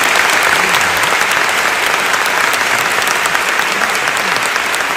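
A large audience clapping steadily, a dense continuous applause that eases off slightly toward the end.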